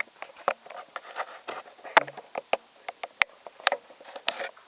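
Camera handling noise while the camera is mounted on a tripod: irregular clicks, knocks and rustles close to the microphone, with the sharpest click about two seconds in.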